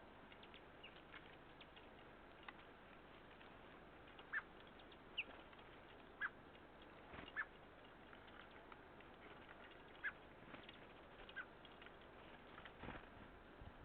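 Small songbirds giving short, scattered chirps, with faint ticks in between.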